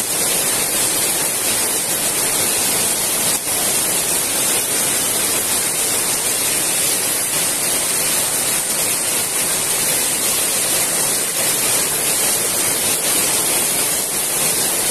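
Very heavy rain pouring down in a steady, dense hiss.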